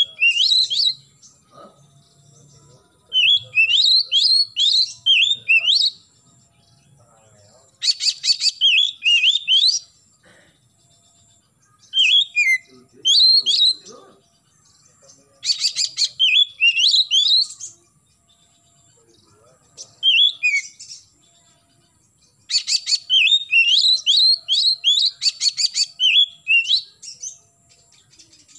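Oriental magpie-robin singing in repeated bursts of rapid, varied whistled notes, several bursts opening with a fast rasping chatter, each burst one to five seconds long with pauses of a second or two between them.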